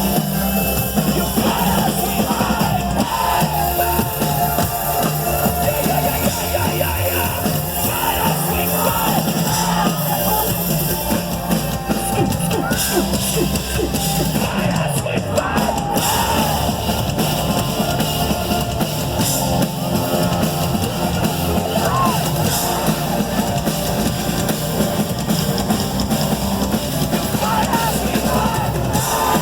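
Live rock band playing loud at full volume, with drums, distorted guitars and shouted vocals.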